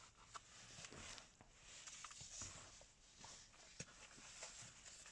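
Faint, scattered clicks and light rustling of plastic parts being handled and fitted back together, with one sharper click near the end, over a low hiss.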